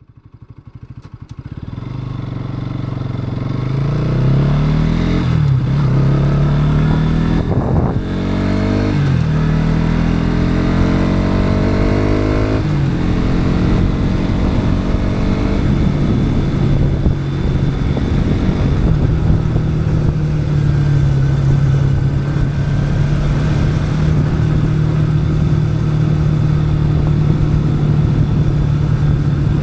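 Bajaj Pulsar NS200's single-cylinder engine heard on board while riding. It fades in over the first few seconds, then accelerates through the gears, its pitch climbing and dropping back at three upshifts. It then settles into a steady cruising note for the rest of the time.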